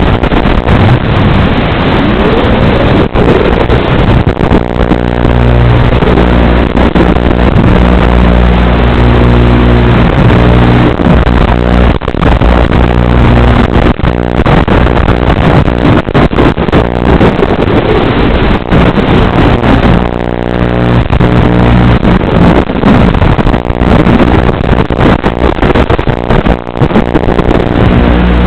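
FPV quadcopter's brushless motors and propellers heard through its onboard camera microphone over the analog video link: a loud buzzing whine whose pitch rises and falls as the throttle changes, over steady hiss.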